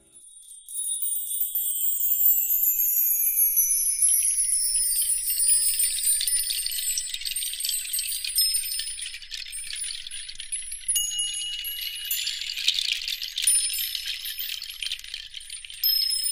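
Chime-like tinkling music made of high, slowly falling glides and short held tones, starting abruptly about half a second in, with nothing in the low range.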